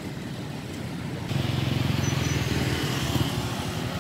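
Road traffic noise, then from about a second in, a motorcycle engine idling close by with a fast, even pulse.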